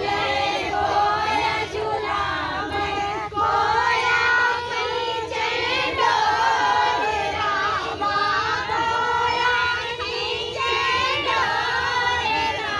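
Several high voices singing a Bagheli Sawan swing folk song together, in rising and falling sung phrases.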